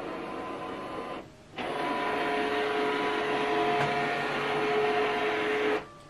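Canon PIXMA TS3151 all-in-one's scanner unit running a scan: a steady mechanical whine with a few held tones from the carriage motor. It breaks off for a moment about a second in, comes back louder, and stops abruptly near the end.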